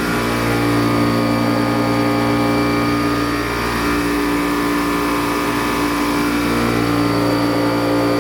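1992 Haas VF-1 CNC vertical mill milling 6061 aluminum with an end mill under coolant: the spindle and cut give a steady whine made of several held tones, with a low hum that fades out about three and a half seconds in and returns near the end.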